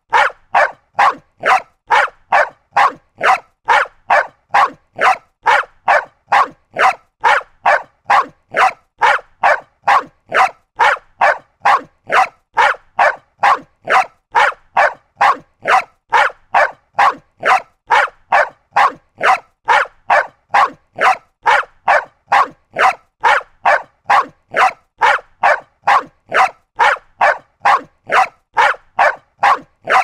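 Small dog barking over and over in an even, unbroken rhythm of about two short barks a second.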